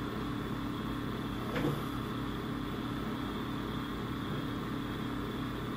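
Steady low hum with hiss, and a brief faint sound about a second and a half in.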